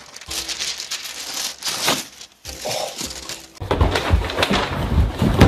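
Tissue paper rustling and crinkling as it is pulled out of a cardboard box, then, a few seconds in, a run of heavy thumps and bumps.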